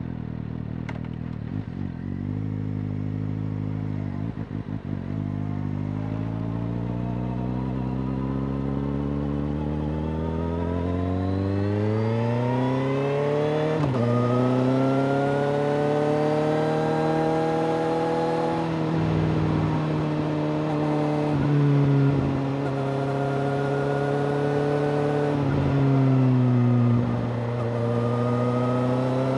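Suzuki GSX-S750's inline-four engine through a Yoshimura R-77J exhaust, under way: the revs climb slowly from low over about ten seconds, drop sharply at an upshift about fourteen seconds in, then hold steady with a few brief throttle dips and rises.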